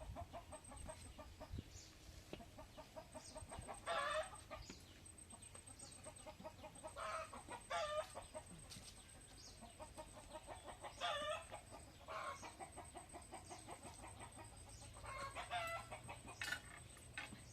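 Domestic poultry calling: short, loud clucking calls every couple of seconds over a quieter, rapid run of low clucks.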